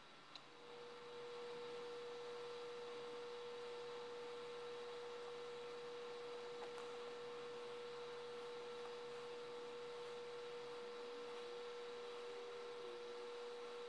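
A steady, unwavering pure tone, starting about half a second in just after a faint click, over a low hiss.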